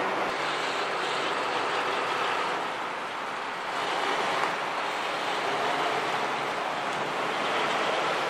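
Steady street noise of vehicles: a tow truck running on a city street, with the rushing of traffic and air.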